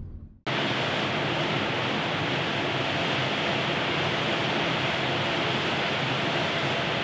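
A steady, even rushing noise, like air from a large blower, cuts in suddenly about half a second in and holds at one level throughout.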